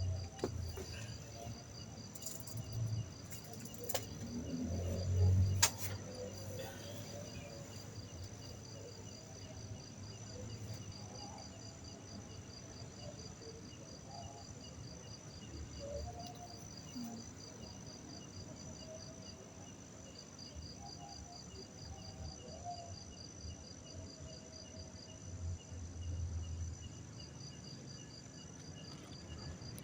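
Crickets chirping steadily in fast, even pulses. Low thumps and a few sharp clicks come in the first few seconds, and more low thumps come around 26 seconds in.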